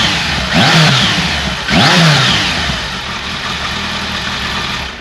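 Kawasaki ZRX1200R inline-four on its stock exhaust, warmed up, blipped twice in quick succession, each rev rising and dropping straight back, then settling back to idle.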